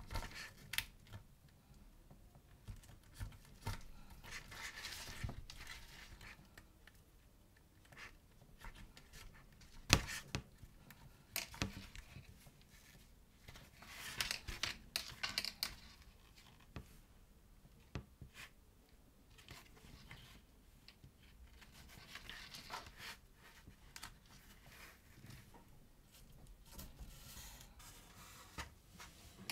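Thread being pulled through the stitching holes of a vegetable-tanned leather strap during two-needle hand stitching: a faint rasping hiss that comes in swells every several seconds, with small clicks and taps of the needles and leather being handled. One sharp knock about ten seconds in.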